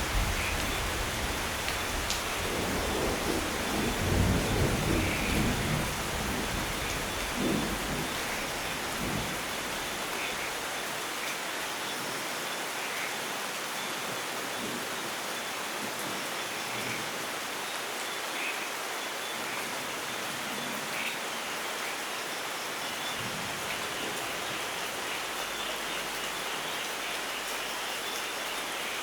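Steady heavy rain with a roll of thunder rumbling in the first few seconds, swelling and then dying away, leaving only the hiss of the rain.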